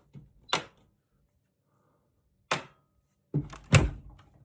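A few separate sharp knocks, then a cluster of louder thuds near the end, like objects being handled and set down.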